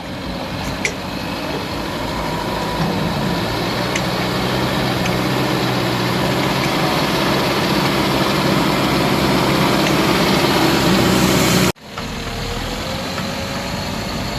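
Heavy diesel engine of earth-moving machinery running steadily and growing gradually louder. About twelve seconds in it cuts off abruptly, and a quieter engine sound follows.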